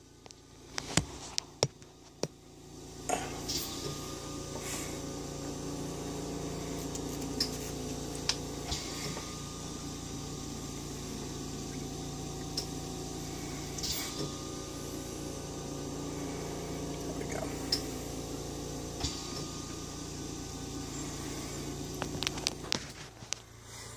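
Handling noise from swapping an action figure's head: scattered small plastic clicks and rustles as one head sculpt is pulled off and another pushed on, over a steady low rushing noise.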